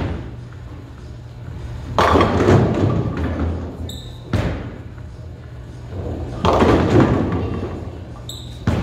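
Bowling ball released onto the lane with a thud, then crashing into Qubica AMF Edge string-tethered pins about two seconds later in a loud clatter. A second loud clatter of pins and machinery comes about six and a half seconds in, over a steady low hum.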